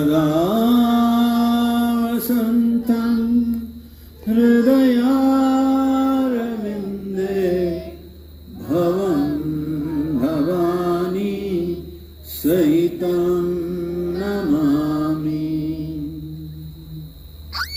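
Mantra chanting in long held phrases: about four phrases of roughly four seconds each, the voice holding steady notes and stepping between pitches, with short breaks for breath.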